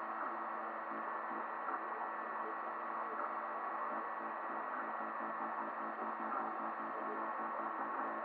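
Desktop 3D printer running mid-print: a steady fan whir with a constant hum of several tones through it.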